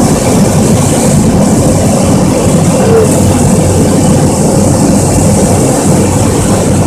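Cessna Caravan's single Pratt & Whitney PT6A turboprop running steadily in flight, heard from inside the cockpit: a loud, even drone with a thin steady high whine over it.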